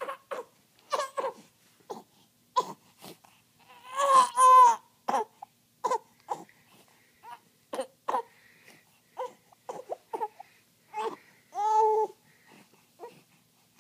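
A baby making short pitched grunting sounds, about two a second, with two longer, louder cries, one about four seconds in and one near the end.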